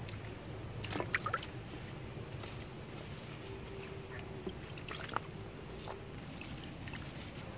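A few short rustles and sharp taps as small fish are picked out of a wet cast net lying on dry leaves, over a steady low outdoor background.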